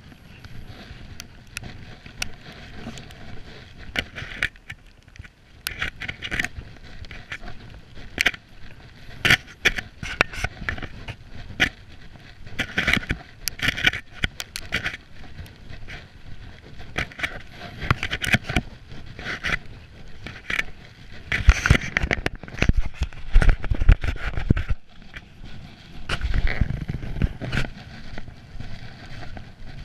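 Irregular crunching, clicking and scraping of footsteps and camera-handling knocks over icy, slushy cobblestones. A heavier low rumble comes in twice in the second half.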